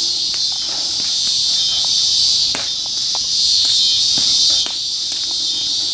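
Loud, steady chorus of insects shrilling, a dense high-pitched buzz that fills the air, with a few faint clicks.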